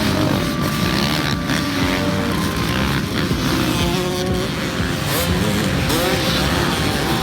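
Motocross bikes racing on a dirt track, several engines revving up and down as the riders work the throttle through the corners.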